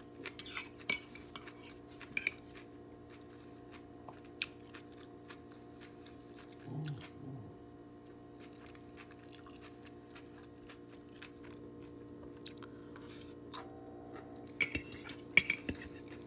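Close-up chewing of a bite of veggie chicken patty with kimchi: wet mouth clicks and crunches, with utensils clinking on a plate, busiest at the start and again near the end. A short low hum from the eater comes about halfway through, over a steady low background hum.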